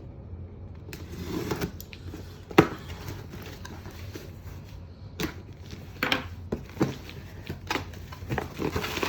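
A phone box and its packaging being handled: scattered clicks, taps and short rustles, the loudest a sharp click about two and a half seconds in.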